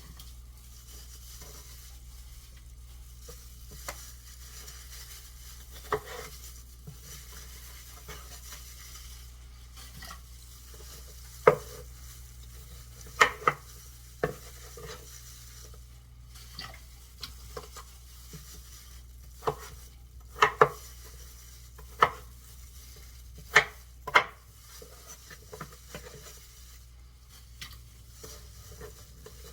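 Kitchen prep sounds: irregular sharp knocks of a knife cutting and handling potatoes, the loudest bunched in the middle of the stretch, over a steady low hum and faint hiss.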